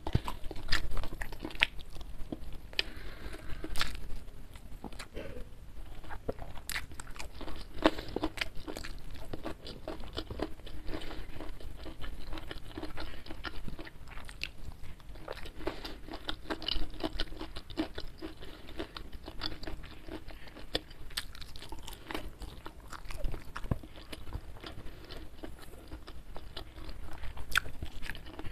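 Close-miked chewing and crunching of a meal eaten by hand: fried chicken with crispy fried crumbs, rice and raw green vegetables, with many sharp crunches throughout.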